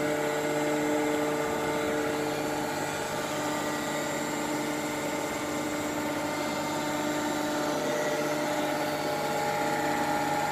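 Rexroth A10VO71 axial piston hydraulic pump running steadily on a test bench with its drive motor, a steady hum with several steady tones. This is a test run after a rebuild with a new rotary group and bearings.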